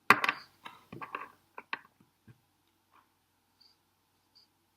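Plastic LEGO bricks clicking and clattering as they are handled and pressed together: a loud cluster of clicks at the start, then scattered lighter clicks over the next two seconds, dying away to a few faint ticks.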